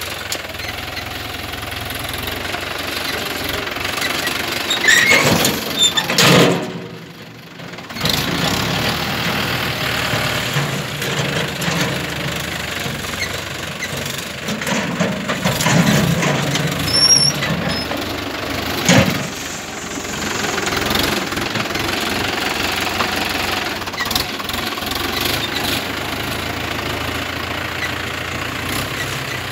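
Tractor diesel engine running while working a front-end loader bucket, the level swelling several times and dipping briefly about seven seconds in.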